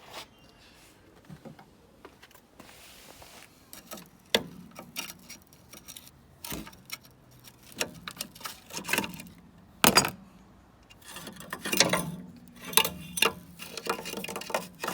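Hand tools working on steel suspension parts: irregular metallic clinks and knocks, with a few short scraping stretches in the second half.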